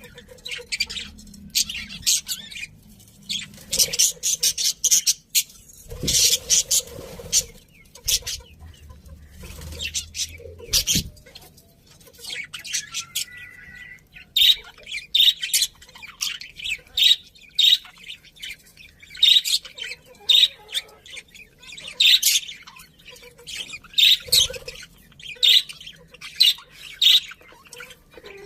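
Budgerigars chirping and chattering, many quick high chirps in bursts, with a few soft knocks around the middle.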